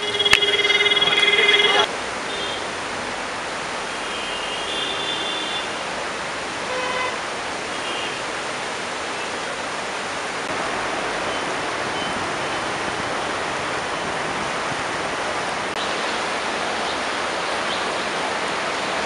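Steady rushing of a river in flash flood, its fast, swollen water making an even noise throughout. A vehicle horn sounds loudly for about two seconds at the start, with a few fainter short honks a few seconds later.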